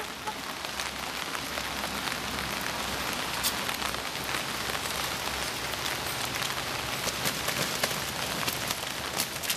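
Steady rain, an even hiss dotted with many small ticks of drops.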